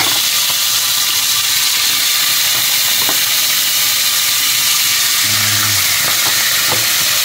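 Whole shrimp frying in hot oil in a stainless steel pot: a steady sizzle with a few scattered pops.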